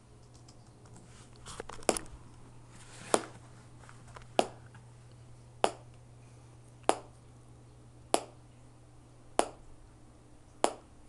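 Stock MacBook Pro's internal speakers playing short sonar chirps, one about every 1.25 seconds, eight in all. Each is a sharp click-like pulse whose echo off the ceiling the laptop's own microphone times to measure distance.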